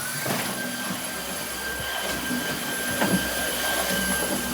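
Cordless Dyson stick vacuum switched on and running steadily, with a high-pitched motor whine.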